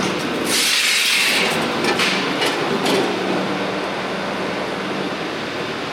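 Shop noise: a burst of hiss lasting about a second, then a few sharp knocks, over a steady low hum.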